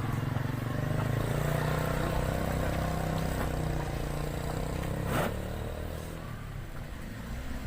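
A motorcycle engine running, growing louder over the first second, holding steady, then fading away. There is a sharp click about five seconds in.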